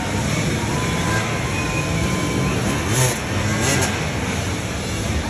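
Several enduro dirt bike engines revving up and down over a crowd of spectators talking and calling out.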